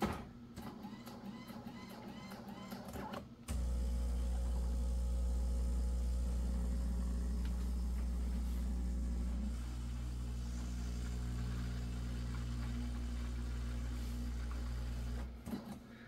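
Terra Kaffe TK-02 super-automatic espresso machine's pump humming steadily as it primes the system during first setup. It starts abruptly about three and a half seconds in, after faint light ticking, changes its note and drops slightly in level about halfway through, and cuts off shortly before the end.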